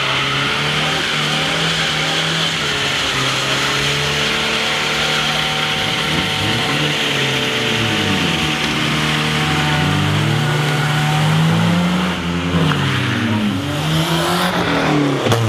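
Several car engines running and revving, their pitches rising and falling and overlapping as cars accelerate and pass.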